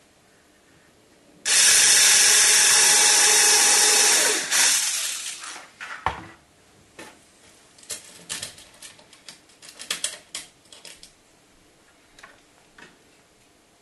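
A small hobby mini drill, run from its transformer power supply, runs at full speed for about three seconds and then winds down. Light clicks and knocks follow as small parts and the drill are handled.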